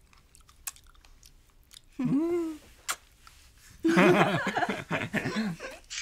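Soft chewing and mouth clicks of someone eating a strawberry, then a woman's wordless voice: a short rising-and-falling sound about two seconds in and a longer, wavering one near the end.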